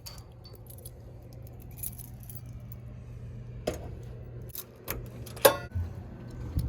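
A few short metallic clinks and jangles, the loudest about five and a half seconds in, over a steady low hum.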